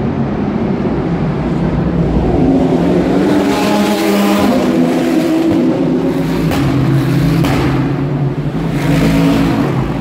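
IMSA race cars' engines at full speed passing one after another. The loudest passes come about four seconds in and again near the end, with a few sharp cracks in between.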